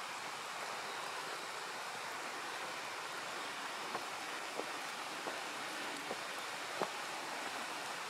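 Footsteps on a forest floor: from about halfway through, short sharp cracks of twigs and debris underfoot come at a walking pace, a little under a second apart, over a steady even hiss.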